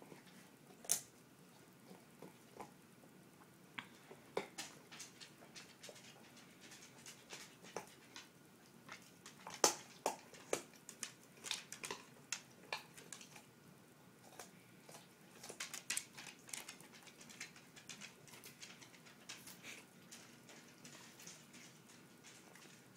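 Faint, irregular soft taps and scuffs from a kitten pouncing and batting on a rug and carpet, in a quiet room.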